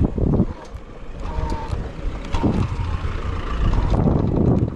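A motor vehicle running, with wind buffeting the microphone.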